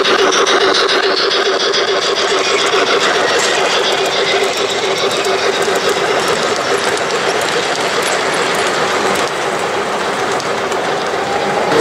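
Gauge 1 (1:32 scale) model train, a steam locomotive pulling freight wagons, rolling past with a dense, steady clatter of its metal wheels on the rails.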